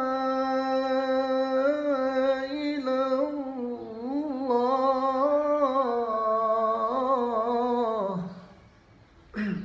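A reciter's voice chanting the Quran, drawing out a long melodic vowel with wavering ornaments in pitch. About eight seconds in, the note falls away and stops, and a short burst of sound comes just before the end.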